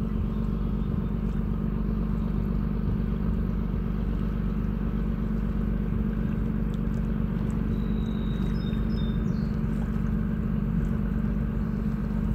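Steady low engine drone, an unbroken hum that neither rises nor falls.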